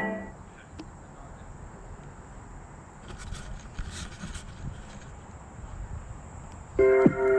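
Outdoor trail ambience picked up by the camera: a low, steady rumble with a few faint scraping clicks around the middle. Music stops right at the start and comes back in near the end.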